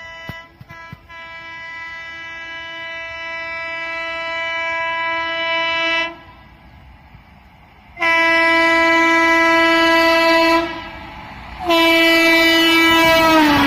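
Horn of a WAP-7 electric locomotive sounding three long blasts as it approaches at speed, each louder than the one before. The last blast drops in pitch as the locomotive passes, and the rush of the passing train rises near the end.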